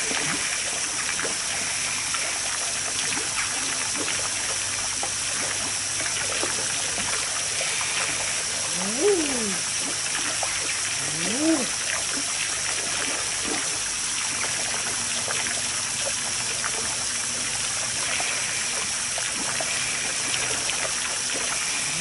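Two crooning calls from male common eiders, each sliding up in pitch and then back down, about nine and eleven and a half seconds in, over steady trickling water.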